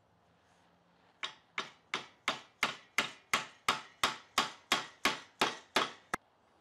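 A hammer tapping a glued wooden dowel down into a drilled hole in a knotty alder door frame: fifteen sharp, even taps at about three a second, starting a little over a second in.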